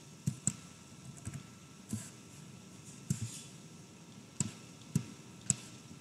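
Computer mouse button clicks, about eight short sharp clicks at irregular intervals, made while drawing connection lines between blocks in a diagram editor.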